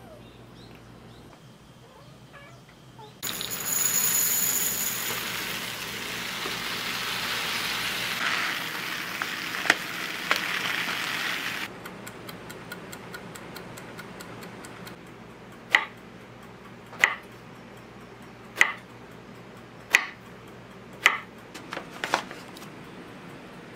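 Rice being washed, water and grains swished in a bowl, for several seconds. Then a wind-up kitchen timer ticking steadily, with six sharp knocks over its ticking a second or so apart.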